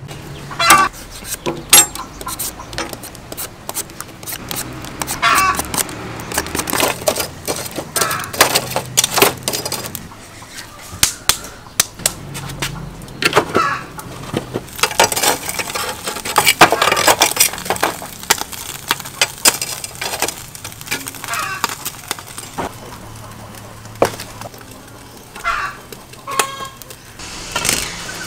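Food-preparation handling sounds: scraping, rubbing and short knocks of produce and meat being worked by hand.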